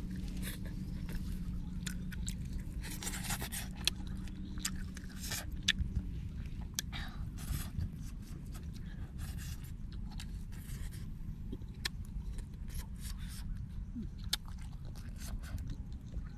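A person biting and chewing grilled frog, with many short crisp crackles as the meat and small bones are torn apart by hand, over a steady low rumble.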